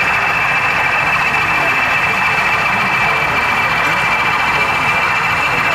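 Steady background din of a busy exhibition hall: many people chattering at once, with no single voice standing out, over an even engine-like hum.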